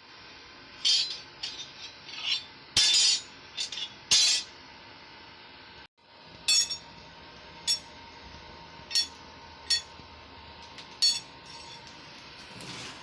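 Blacksmith's hammer tapping steel on an anvil: about a dozen irregular, light metallic strikes, each ringing briefly, over a steady background hiss. The sound cuts out for a moment about six seconds in.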